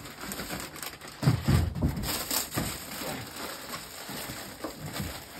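Plastic wrapping on packs of soda bottles crinkling and rustling as it is handled, with a louder crackle just over a second in.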